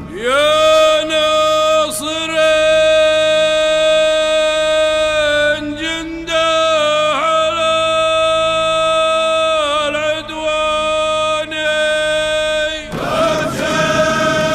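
Background vocal chant: a voice sings long held notes with small ornamented turns in pitch. Near the end it gives way to a fuller, choir-like sound.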